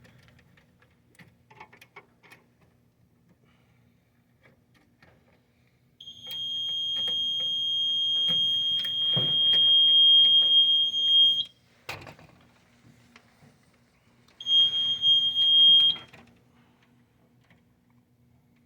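Fire alarm panel's piezo trouble sounder giving a steady high beep for about five seconds, then again for about a second and a half, set off by an open wiring fault on the strobe circuit as one side of the loop is lifted. Light clicks of wire and tool handling, with a single sharp knock between the two beeps.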